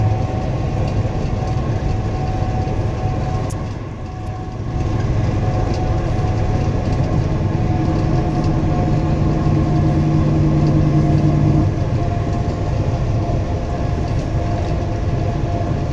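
A moving tractor-trailer heard from inside its cab: a steady drone of diesel engine and road noise. A steady low hum stands out from about six seconds in and stops shortly before twelve seconds.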